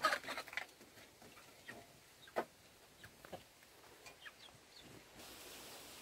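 The tail of a chicken's clucking call right at the start, then sparse short knocks and snaps with a few brief, faint high chirps around four seconds in. From about five seconds in, a steady faint outdoor hiss.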